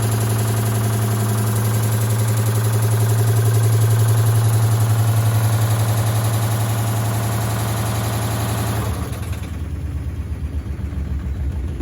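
Indesit washing machine spinning fast with a stone in the drum: a loud, steady motor hum with a rapid even pulsing from the spinning load. About nine seconds in, the motor hum cuts out and the drum carries on winding down with a rougher, uneven rumble.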